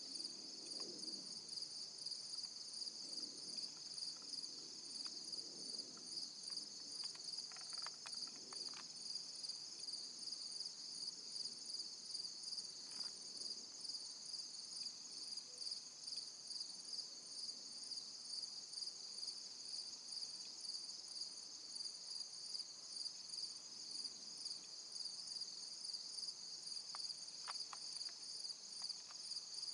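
A chorus of insects trills steadily in high, rapidly pulsing tones. Faint rustles sound in the first several seconds, and a few soft clicks come through now and then.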